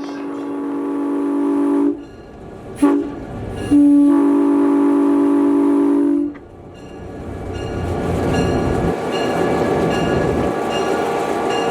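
Diesel locomotive horn blowing a long blast, a short one and another long blast, followed by the rising rumble of the train running on the rails as it draws closer.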